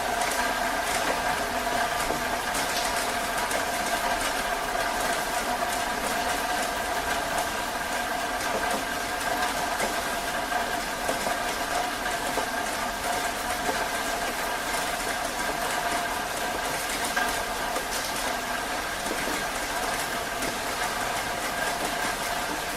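Heavy rain falling steadily, a dense even hiss of drops, with a faint steady hum underneath.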